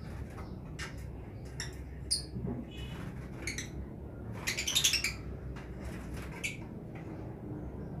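A colony of lovebirds giving short, high-pitched squawks and chirps here and there, with a loud cluster of calls about halfway through.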